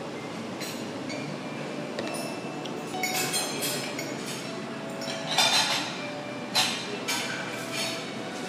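Steady background hum of a café, with a few short clinks and rustles from handling on the table, as the fruit bar is lifted out of its glass of crushed ice; the loudest come just past the middle.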